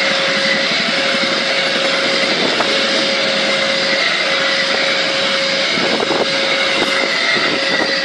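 Passenger train coaches rolling past at speed: a steady loud rush of wheels on rail, with a steady tone running through it and a few faint clicks late on.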